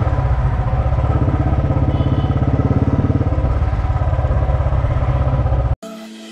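Motorcycle engine running under the rider at low road speed, with a steady rapid exhaust beat. Near the end it cuts off abruptly and an outro music sting begins.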